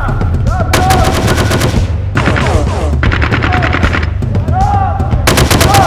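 Four bursts of rapid automatic gunfire, each a close run of sharp shots lasting about a second, over a low steady music bed.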